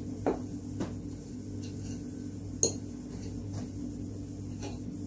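Metal cutlery clinking and scraping against a plate while a piece of chicken is cut and picked up: a few sharp clinks, the loudest about a quarter of a second and two and a half seconds in, over a steady low hum.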